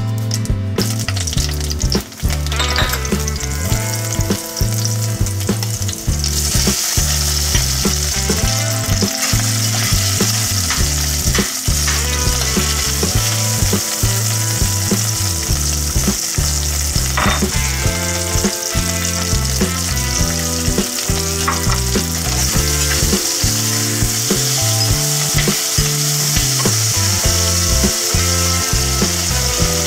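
Oil sizzling in a stainless steel pan as chopped green chilies and boiled potato pieces fry and are stirred. The sizzle becomes much louder about six seconds in and then holds steady.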